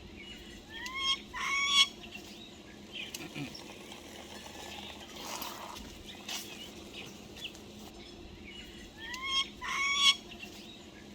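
A bird calling twice, about eight seconds apart. Each call is a couple of short rising notes followed by a louder, held note.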